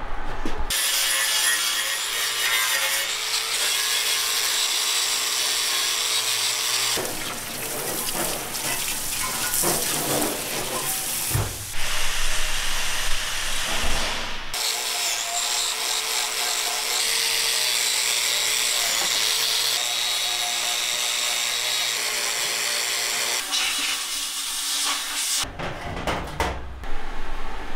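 Power tool lightly grinding the gasket mating faces of aluminium engine covers (oil pan and timing cover): a steady, hissing whir in several stretches that change abruptly.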